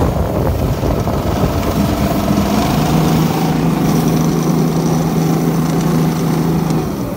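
6.5 hp single-cylinder engine of a tracked motodog-type snow tractor running under throttle as it ploughs through deep snow. The engine note is ragged at first, holds steady from about three seconds in, and drops near the end.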